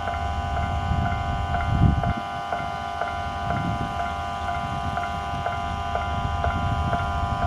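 Japanese level-crossing warning bell ringing steadily, about two strikes a second, with a low rumble underneath that swells briefly about two seconds in.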